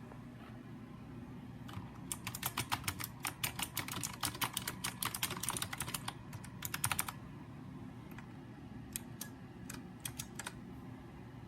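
Typing on a Razer Huntsman Mini keyboard with clicky optical switches: a fast run of sharp key clicks lasting about five seconds, then a few scattered keystrokes near the end, over a steady low hum.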